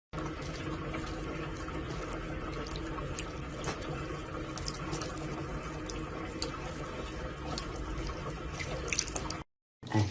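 Steady running water with scattered small clicks, cutting off suddenly near the end.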